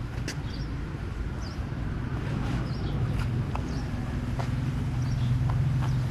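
A steady low engine hum that grows a little louder partway through, with faint bird chirps now and then.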